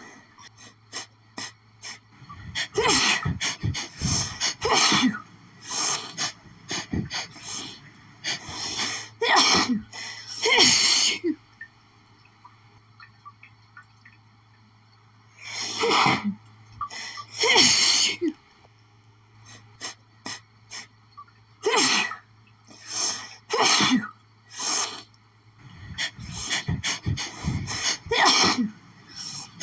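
A woman sneezing over and over in rapid fits, with the sneezes coming in tight clusters and a pause of a few seconds about halfway through. It is an allergic sneezing fit, which she puts down to lily pollen.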